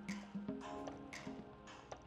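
Background music: plucked and tapped notes over a light, steady percussive beat.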